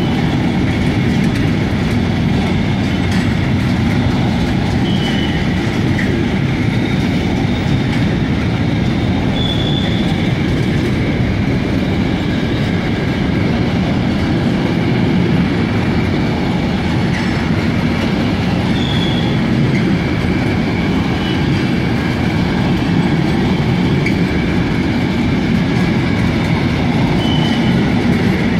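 Container freight train's flat wagons rolling past close by: a steady rumble of steel wheels on the rails, with a few brief high wheel squeals now and then.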